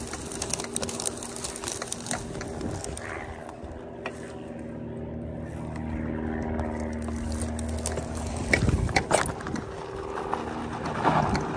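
Electric bike's QS273 hub motor whining steadily under way, with tyre and wind noise from riding a dirt track. A few sharp knocks come about three-quarters of the way through.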